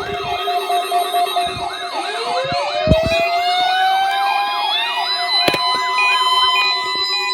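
Sirens sounding together: a fast up-and-down yelp repeating about three times a second, joined about two seconds in by a wail that rises slowly and levels off into a steady high tone, over steady lower tones.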